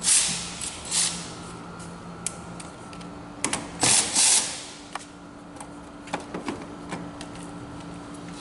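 Hand tools clicking and scraping on a car battery's negative terminal clamp as it is loosened and pulled off, with loud bursts at the start, about a second in, and about four seconds in, then scattered smaller clicks.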